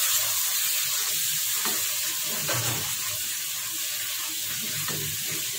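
Onion-tomato masala with spice powders sizzling in a karahi while a wooden spoon stirs and scrapes through it, the masala being fried down with a splash of water so the chilli powder doesn't burn. The sizzle eases slightly.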